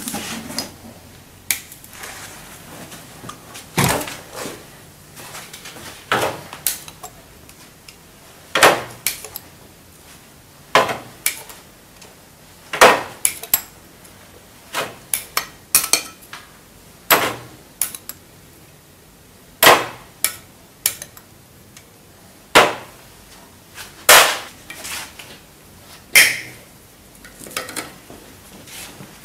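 Hand tools and metal parts clinking and knocking on a bare diesel cylinder head during disassembly: irregular sharp metallic clicks and taps a second or two apart, a few ringing briefly.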